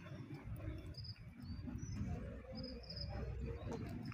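Insects chirping outdoors in short, high bursts, repeating irregularly about once a second, faint over a low rumble.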